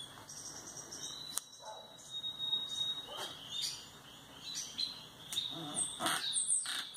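Bird chirping and whistling in short, high rising and falling calls, with a longer held whistle about a second in and a quick run of chirps near the end.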